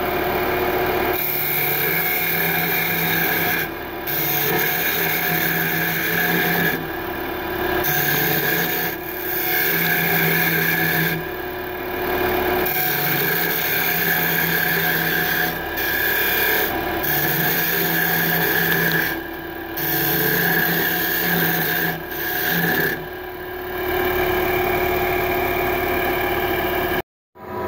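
Wood lathe spinning a beech table leg while a turning tool cuts into it: a harsh scraping of steel on wood over the lathe motor's steady hum. The cutting comes in passes of a few seconds each, with short lulls between them.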